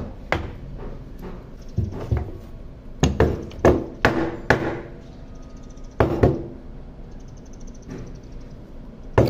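Nissan Frontier D22 brake master cylinder, a cast metal body, being knocked open end down against a wooden block to shake its inner pistons and old fluid loose. The sharp knocks come mostly in quick pairs, with a pause of a few seconds before a last pair near the end.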